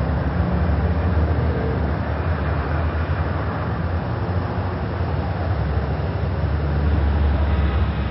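Heavy city street traffic of cars, buses and motor scooters crawling in a jam: a steady low engine rumble with road noise, a little louder near the end as a bus moves in close.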